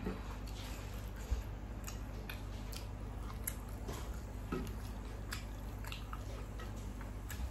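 A person chewing and biting food close to the microphone, with scattered small wet clicks and crunches.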